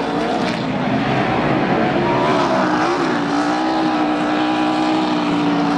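NASCAR Cup car's V8 engine held at high revs in a burnout, rear tyres spinning in clouds of smoke. The pitch wavers up and down for the first few seconds, then holds steady.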